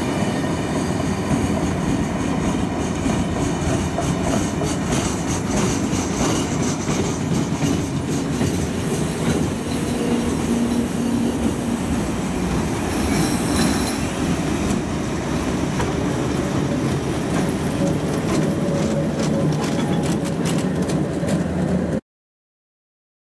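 An engineering train of flat wagons loaded with used track rolls past at speed, its wheels clattering over the rail joints, with the clicks coming thicker about halfway through as the trailing London Underground battery-electric locomotive goes by. The sound stops abruptly near the end.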